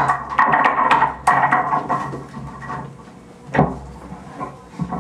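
Amplified noise performance through a small mixer: clattering, scraping and clicking over a steady electrical hum. It is busy for the first three seconds, then sparser, with a thump about three and a half seconds in.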